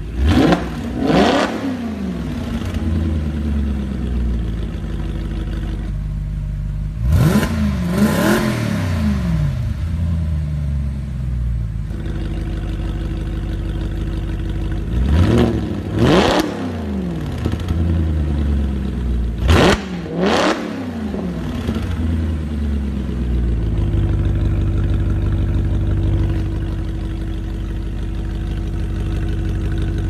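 Audi RS5 B8's 4.2-litre V8 through an Armytrix valved exhaust, blipped in four quick pairs of sharp revs, each falling straight back to idle. It then idles steadily for the last several seconds.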